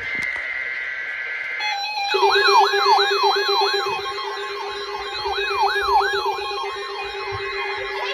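Weather radio warning alarm sounding for its weekly test: a steady high tone, joined about two seconds in by a steady, slightly pulsing lower tone and a fast rising-and-falling siren wail, several alarm sounds overlapping.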